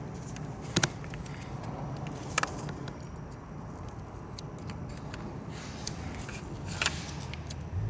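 Three sharp plastic clicks, about a second, two and a half and seven seconds in, as the ignition coil connector plugs are unclipped. A steady low hum runs underneath.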